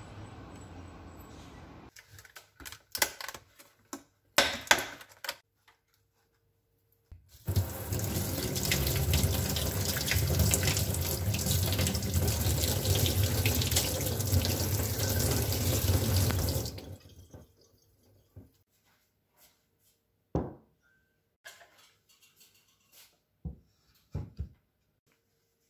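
Kitchen tap running onto hands and a cherry tomato in a stainless steel sink as the tomato is rinsed. The water comes on about seven seconds in and shuts off about ten seconds later. It is framed by a few short knocks and clicks of kitchen handling.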